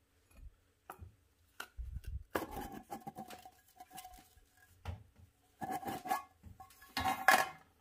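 Metal parts handled by hand: a few light clicks, then a steel cup scraping and clinking, with a faint ring, as it is slid over and turned on a round metal part. The loudest scrape comes near the end.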